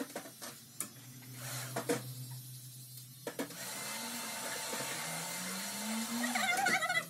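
A few sharp snips of scissors, then about three seconds in a small electric hair trimmer switches on and runs steadily. Near the end a short wavering voice-like sound rises over the trimmer.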